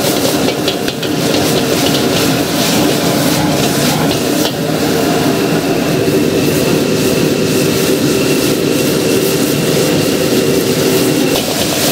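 Steady roar of a commercial gas wok burner at high flame, with a stir-fry sizzling in the wok and scattered clicks and scrapes, mostly in the first half.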